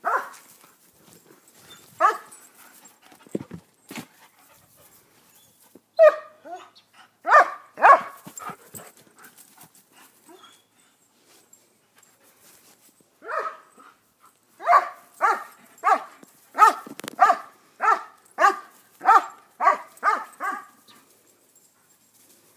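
German shepherd barking: a few single barks in the first half, then a quick run of about a dozen barks, roughly two a second, in the last third.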